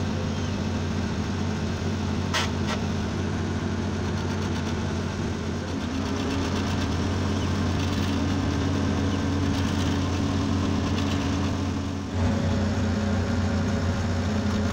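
Farm machinery's engine running steadily close by while a tractor front loader lifts small square hay bales, with one sharp click about two seconds in. The engine note shifts slightly about six seconds in and again about twelve seconds in.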